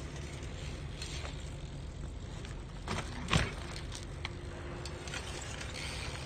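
BMX bike rolling across pavement and dirt: a low steady rumble with a few light clicks and rattles, and one louder knock about three and a half seconds in.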